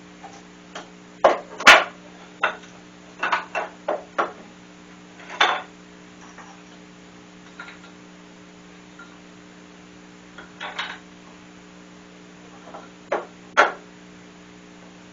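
Irregular knocks and clatter of wooden table parts and clamping blocks being handled and set against each other during a glue-up. The loudest knock comes about a second and a half in, with a quick run of knocks a few seconds later, over a steady low hum.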